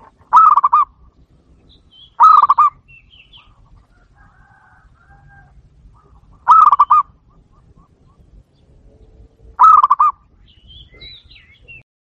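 Zebra dove (perkutut) cooing: four short, loud, rolling coo phrases a few seconds apart, with faint chirps of other small birds in between.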